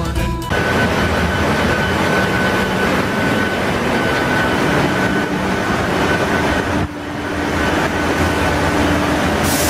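Ship's engine room machinery running: a loud, steady mechanical din with a deep hum and a few constant whining tones. A short burst of music ends just at the start, and the din briefly drops about seven seconds in.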